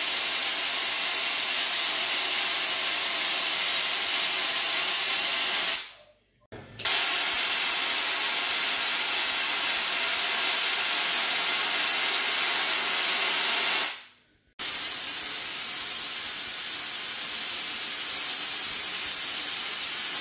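A ZVS-driven spark-gap Tesla coil, fed by two flyback transformers in parallel, arcing continuously with a loud, steady, harsh high hiss from its sparks. It cuts off suddenly about six seconds in and again about fourteen seconds in, each time starting again under a second later.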